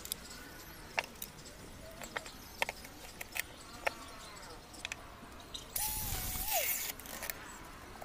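Light clicks and knocks of wood and a metal rule being handled, then about six seconds in a cordless circular saw runs for about a second, its whine dropping in pitch as it winds down after the trigger is released.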